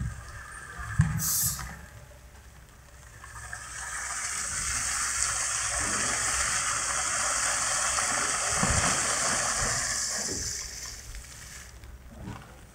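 Compressed air blasting water up and out of a sonic logging tube on a bored pile: a rushing gush of air and spray that builds about three seconds in, holds steady and dies away near the end, after a short hiss of air about a second in.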